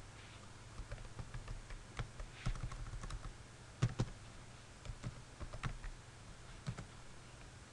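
Typing on a computer keyboard: irregular key clicks, the loudest about halfway through, over a faint low steady hum.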